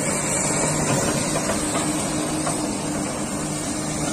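Komatsu PC200 excavator's six-cylinder diesel engine running at a steady, even hum over a constant hiss.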